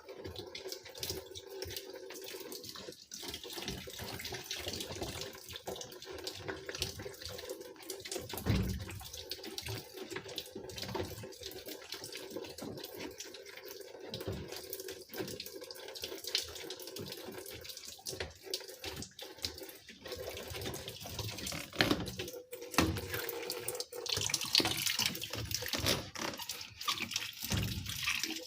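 Tap water running while washing-machine parts are scrubbed with a sponge and dish soap, with scattered knocks of the parts against the sink.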